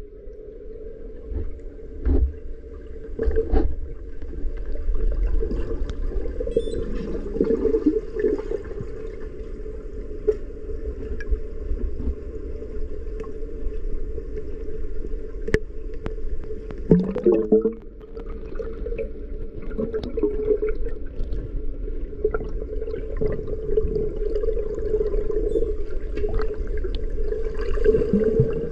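Muffled underwater sound of a swimming pool as heard from a submerged camera: a steady hum and low gurgling water noise, with a few scattered knocks and a louder churn of water a little past the middle.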